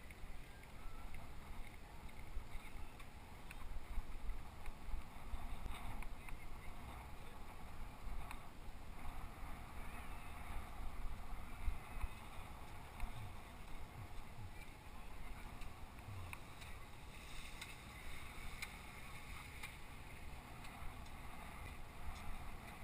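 Wind buffeting the microphone of a camera on a moving bicycle, a gusting low rumble, with a faint hiss of tyres rolling on pavement and a few small rattles.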